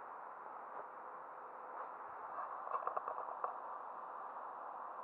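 Steady hiss of flowing river water in the current, with a quick run of small clicks about halfway through.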